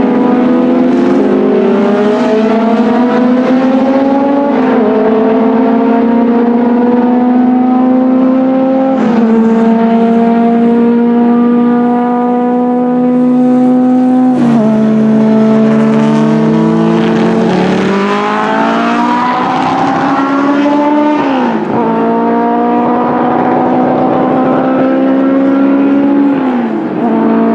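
Racing car engines at full throttle, loud throughout. The pitch climbs slowly and then drops sharply about five times, with a second engine's pitch crossing the first in the middle.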